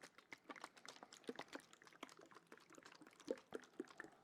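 Water sloshing inside a large water bottle as it is shaken, heard as a quick, uneven run of small wet splashes and clicks.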